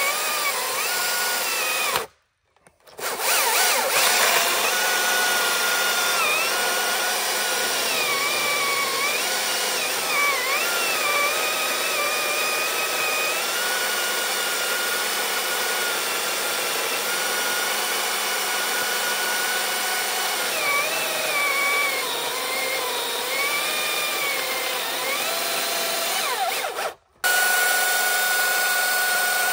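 Battery-powered top-handle chainsaw cutting through a large log, its electric motor whine dipping and recovering in pitch as the chain bogs in the wood. The sound drops out briefly about two seconds in and again near the end, after which the saw runs freely at a steady pitch.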